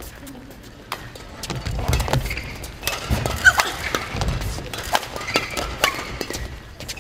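Badminton doubles rally: rackets strike the shuttlecock in a quick run of sharp hits about every half second, starting about a second in, along with the thuds of the players' footwork on the court floor.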